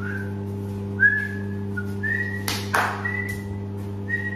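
A woman whistling a string of short, level notes over a steady low hum, with a brief whooshing noise about two and a half seconds in.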